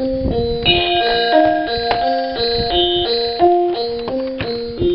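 Built-in chimes sound of a 1990s Zenith Aroma Sound clock radio: a run of bell-like pitched notes, about three a second.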